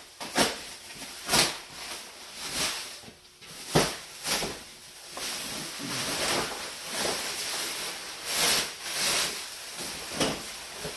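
Packaging being pulled and torn off a shipping crate: an irregular series of short tearing, rustling and scraping noises, about one a second.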